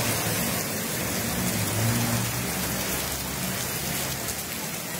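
Heavy rain and rushing muddy floodwater, a steady dense hiss that does not let up.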